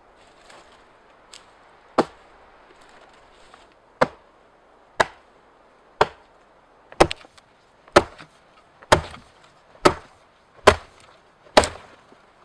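Axe chopping into a fallen log on the ground: about ten sharp wooden strikes, two seconds apart at first, then coming about once a second in the second half, a few followed closely by a lighter second knock.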